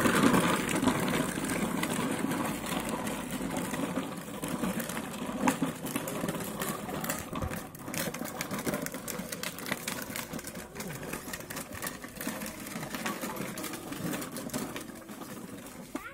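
Plastic wheels of a child's pedal ride-on toy motorbike rolling over a rough dirt path: a steady rumbling rattle with many small clicks and knocks.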